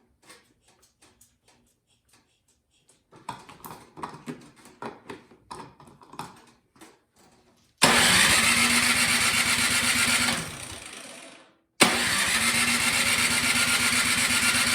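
Electric starter cranking a Craftsman snowblower engine twice, each time for about three seconds, and winding down when released without the engine catching. This is the engine's no-start fault. Before the cranking come scattered light clicks and knocks.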